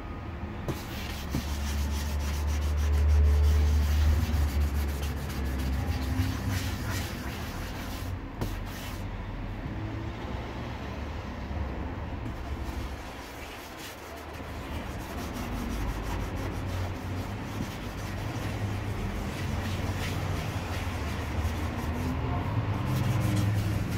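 Wet sandpaper scrubbing back and forth over the black plastic of a motorcycle top case, a steady rasping hiss, as its scratches are sanded out. A deep rumble swells about a second in and fades a few seconds later.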